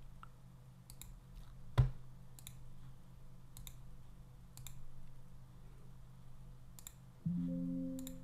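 Computer mouse clicks, about seven spread a second or so apart, one louder with a low thump about two seconds in, over a faint steady hum. Near the end comes a short Windows alert chime as a 'file already exists, replace it?' dialog pops up.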